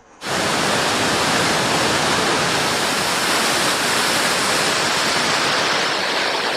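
Large waterfall rushing, a loud steady roar of falling water that cuts in abruptly at the start.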